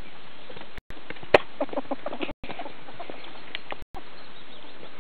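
Ferrets dooking: a sharp click, then a quick run of soft clucking chuckles about a second and a half in, and another short cluck later, over a steady background hiss.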